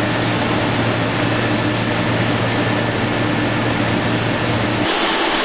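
Takumi DCM 3020 CNC machining center milling a steel plate: a loud, steady rush of cutting noise over a low hum. Near the end the hum drops out and the sound turns hissier.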